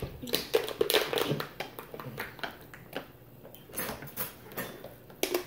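Irregular clicks and crackles of a thin plastic water bottle crinkling as a toddler grips it and drinks. The crackling is densest in the first second or so, then comes in scattered bursts, with one sharp click near the end.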